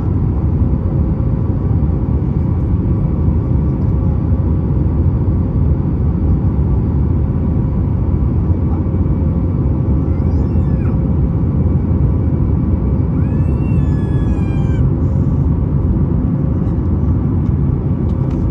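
Inside the cabin of a Boeing 737-9 MAX, its CFM LEAP-1B turbofan engines run steadily in the climb after takeoff: a loud, even rumble of engine and airflow noise with a steady hum. Two brief high-pitched voice-like sounds come through about ten and fourteen seconds in.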